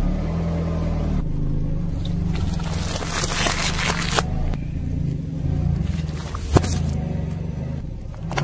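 A car engine running slowly with a steady low hum, under scattered crackles and one sharp snap about six and a half seconds in, as a tyre rolls over and crushes objects.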